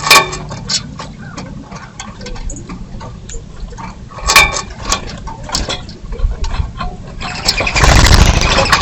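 Birds at a feeder: two sharp, loud calls, one right at the start and one about four seconds in, with many small taps and clicks in between, then a loud rushing, rustling burst over the last second and a half with another call at its end.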